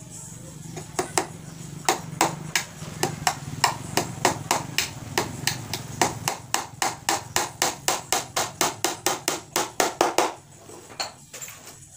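Hammer driving nails into 12 mm plywood panels of a speaker box: a run of sharp blows, about two or three a second, quickening to about four a second before stopping about ten seconds in, then one or two more taps.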